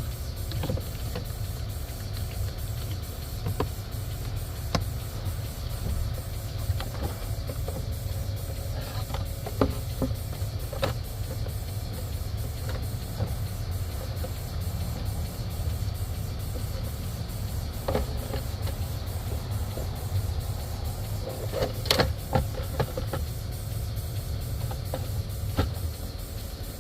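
Scattered plastic clicks and knocks, loudest in a cluster near the end, typical of the glovebox and cabin air filter housing being handled. Under them runs a steady low rumble from the truck.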